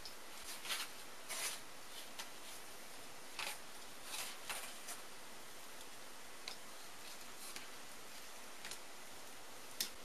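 Thin insulated wires being handled and tidied by hand, with scattered short clicks and snips from a small hand tool, over a steady low hiss.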